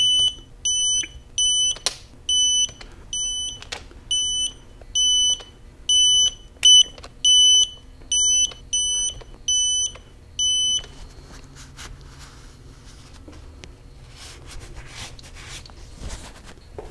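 Digital torque wrench beeping as bolts reach the preset 20 foot-pound target: a run of short, high beeps, about one or two a second, that stops about eleven seconds in. Faint clicks and handling noise from the wrench and parts follow.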